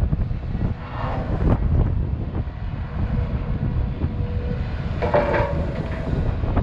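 Volvo EC210BLC excavator's diesel engine working under load as the bucket digs soil, lifts and swings toward the truck. Brief higher hydraulic whines come about a second in and again about five seconds in, and wind buffets the microphone.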